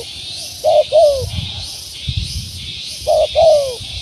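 Spotted dove (tekukur) cooing: two short, falling coos in quick succession, given twice about two and a half seconds apart, over a steady high hiss.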